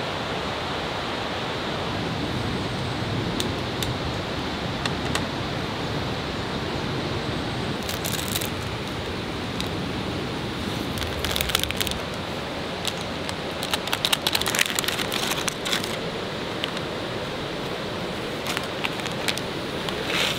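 Plastic ramyeon packets and a seasoning sachet crinkling as they are handled, in several short bursts, over a steady hiss.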